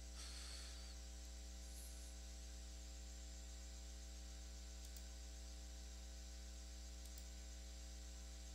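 Steady, faint low electrical mains hum with a few higher overtones, from the recording chain, with a brief faint hiss just after the start.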